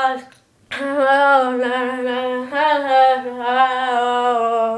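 A boy's voice singing unaccompanied, holding long, gently wavering notes, with a short break about half a second in.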